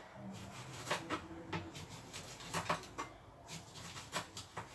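Knife cutting a lemon on a plastic chopping board: a handful of quiet, uneven knocks as the blade meets the board.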